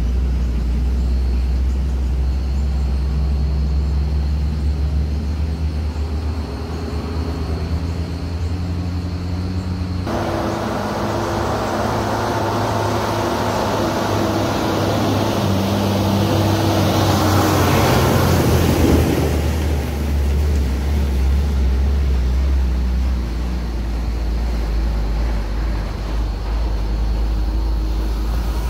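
Diesel engines of heavily loaded Tata trucks running with a steady low drone. The sound swells to its loudest about two-thirds of the way through as one truck comes round the bend and passes close.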